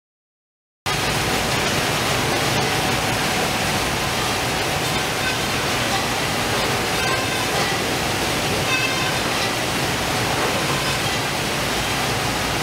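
Fish-processing line with a Baader 444 heading and gutting machine running: a steady, dense mechanical noise mixed with running water. It starts abruptly about a second in, after silence.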